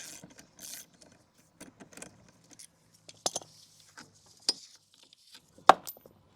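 Metal clicks and clinks of a socket wrench working loose the blade nut on an electric mower, scattered and irregular, with a sharp metallic clank near the end. Some rubbing and scraping is heard in the first second.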